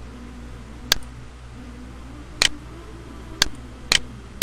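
Computer mouse clicking: single clicks about a second in and just past three seconds, and quick double clicks at about two and a half and near four seconds, over a steady low hum.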